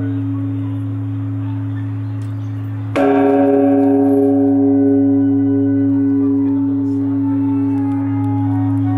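Large Japanese bronze temple bell (the Shiroyama bell) still humming low from an earlier stroke, then struck again about three seconds in. The new stroke rings with many overtones that slowly fade over a deep, steady hum.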